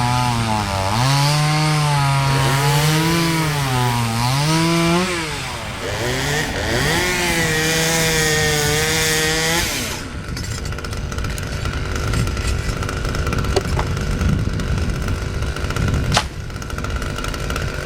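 Husqvarna T540 XP top-handle two-stroke chainsaw running at high revs, its pitch dipping and recovering as the chain loads up in the cut. About ten seconds in the engine note drops away, leaving a rough low noise and a single sharp crack near the end.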